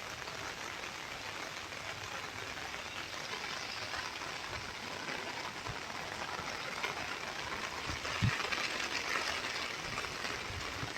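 Steady rain falling, an even hiss of drops on surfaces, with a faint knock about eight seconds in.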